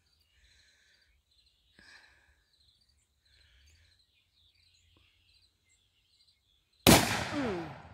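A single rifle shot, sudden and loud, about seven seconds in, its sound dying away over about a second. Before it, faint bird chirps.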